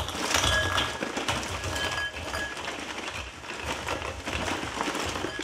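Bite-size shredded wheat pouring out of the box's plastic liner into a bowl: a steady dry rattle and crinkle of the pieces tumbling.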